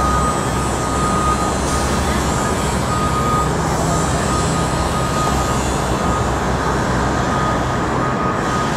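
A vehicle's back-up alarm beeping repeatedly at one steady pitch, over a constant rumble of city traffic.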